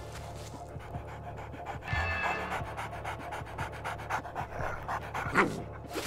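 Dog panting in quick, even breaths, over background music.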